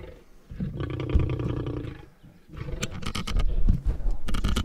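Lion growling from cover in two long, rough growls. The first comes about half a second in and lasts over a second; the second, louder one starts past the middle and runs on. These are the warning growls of a lion standing its ground.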